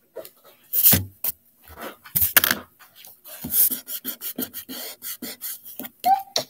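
Pencil drawing on sketchbook paper: a run of short, quick scratchy strokes and rubs, the loudest about a second in and again a little after two seconds.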